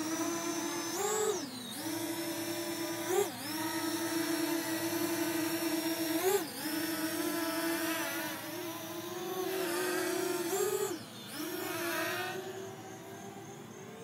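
Parrot Anafi quadcopter's propellers whining steadily in a hover, the pitch swooping briefly up and back down four times as it manoeuvres. The whine fades near the end as the drone flies off.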